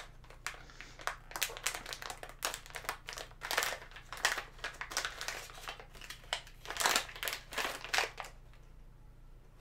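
A foil Funko Pint Size Heroes blind bag crinkling in many short rustles as it is torn open by hand and its figure taken out, for about eight seconds.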